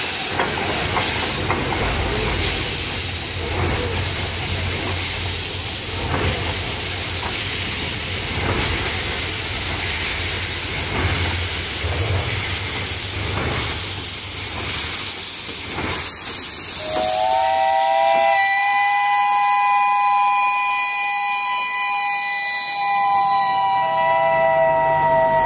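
Pacific-type steam locomotives 824 and 850 pulling slowly past: a loud hiss of escaping steam with a low exhaust chuff every second or two. About two-thirds of the way in, a steam whistle sounds a long, steady chord of several notes, one note dropping in pitch near the end.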